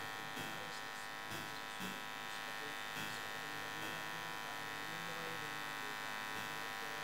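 Steady electrical buzz through a PA sound system, with faint murmured voices of a crowd quietly reciting Al-Fatiha underneath.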